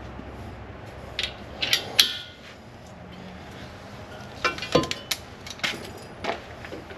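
Metal clanks and clicks of backhoe mounting pins and their retaining clips being handled and set in place, with the sharpest clank about two seconds in and a quicker run of clicks a little past halfway. A low steady hum fades out in the first couple of seconds.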